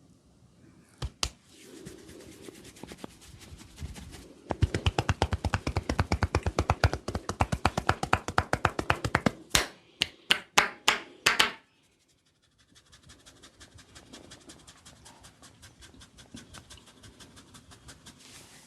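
Percussive hand massage on a body: rapid rhythmic slaps and chops, several a second, loudest in the middle, then about six sharper, slower slaps. After a short pause, lighter fast tapping follows. Two sharp snaps come about a second in.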